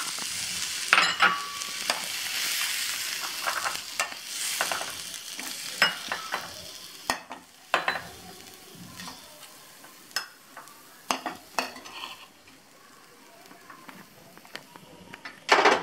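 A metal spatula scraping and clinking against a steel pan as freshly stir-fried vegetable upma is scooped out into a bowl. The hot pan's sizzle fades over the first half, leaving separate scrapes and taps, with one louder scrape or knock near the end.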